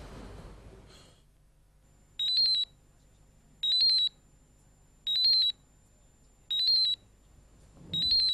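Mobile phone ringing: a high electronic trilling ringtone in short bursts, five rings about a second and a half apart.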